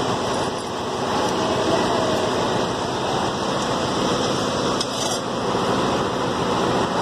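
Steady background noise with a few light metallic clinks, the clearest about five seconds in, as loose embroidery-machine parts are handled.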